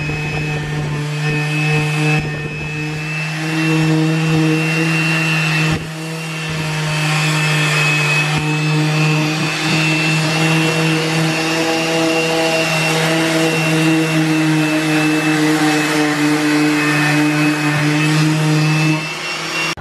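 DeWalt random orbit sander running against a painted boat deck edge: a steady motor hum with a high thin whine over a sanding hiss. It dips briefly twice early on and stops about a second before the end.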